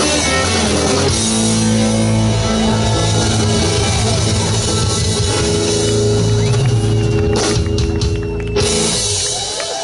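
Live blues-rock band of electric guitars, electric bass and drum kit playing the ending of a song, holding the final notes. The band cuts off sharply about eight and a half seconds in.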